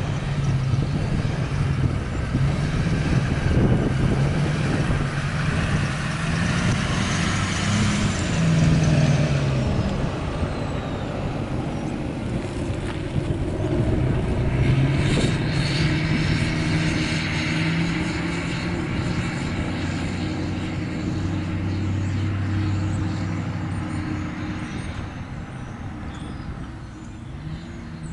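Diesel locomotive engines of a freight train running with a steady low drone, easing off somewhat near the end.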